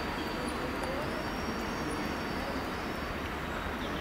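A diesel multiple unit approaches slowly over the station pointwork with a steady low rumble. A thin, high, steady wheel squeal runs through it.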